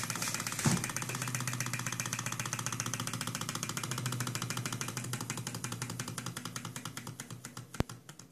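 Small model alpha Stirling engine with glass syringe cylinders running, its pistons and flywheel linkage making a fast, even ticking that slows and fades over the last few seconds. There is one sharp click near the end.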